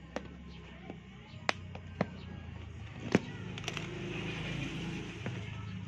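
Sharp, irregular clicks and taps of small repair tools against a phone's parts while it is being taken apart, about six in all, the loudest a little after the middle, over a steady low hum.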